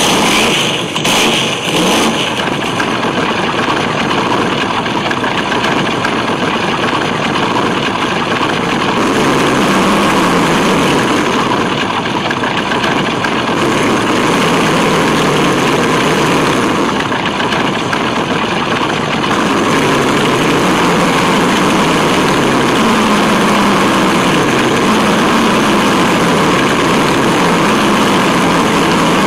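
Tamiya Wild Willy 2 RC truck running over stone paving, heard from the onboard camera: a steady loud mechanical drone whose pitch rises and falls as the throttle changes.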